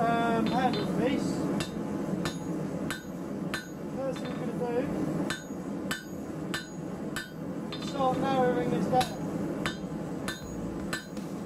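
Hand hammer striking a hot square steel bar on an anvil: a steady rhythm of blows, about three every two seconds, starting about a second and a half in, as the bar's end is forged down.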